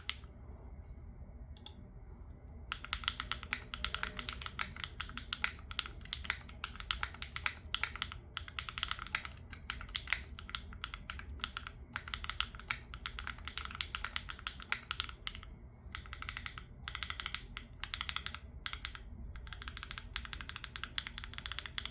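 Neo60 Core mechanical keyboard with an FR4 plate, full cotton dampening and 庭外茶 switches, being typed on in fast, steady runs of keystrokes. The typing almost stops for about two seconds near the start, then runs on with a few short breaks near the end.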